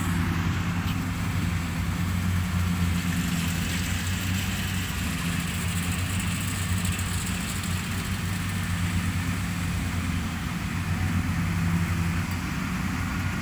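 Rice combine harvester's diesel engine running steadily, a low, even hum.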